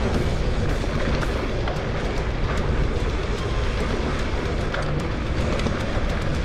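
Mountain bike riding fast on a dirt trail: steady wind rumble on the camera microphone, tyre noise, and frequent sharp ticks of the bike's chain and frame rattling over rough ground.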